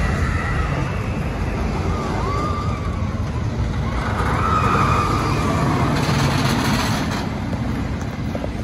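A wooden roller coaster's train running along its wooden track with a steady rumble that swells a little midway, and high wails rising and falling over it, most likely the riders screaming.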